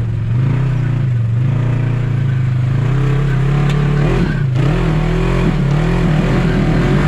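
Polaris RZR XP 4 1000 side-by-side's parallel-twin engine revving up and down as it climbs a rock ledge under load, with several quick throttle blips in the second half.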